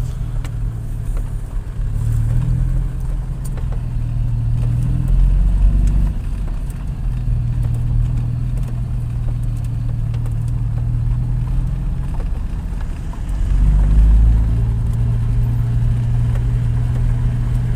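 Jaguar 420's 4.2-litre straight-six engine running at low revs in first gear, heard from inside the cabin. It swells louder twice as the revs pick up, about five seconds in and again near fourteen seconds.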